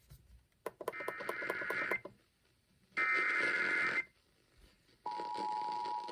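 Emergency Alert System SAME header: two buzzy, warbling data bursts, about a second each with a pause between them. About five seconds in, the steady two-tone EAS attention signal starts. Together they mark the start of a new alert.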